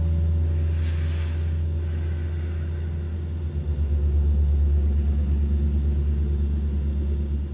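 A loud, low rumbling drone with a brief hissing swell about a second in; from about three and a half seconds in the rumble flutters rapidly.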